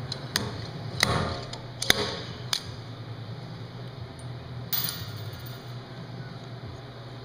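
Metal-on-metal knocks, four sharp ones in the first three seconds, as old valve seats with washers welded inside are driven out of a Cat D343 diesel cylinder head. A brief high metallic ring follows about five seconds in.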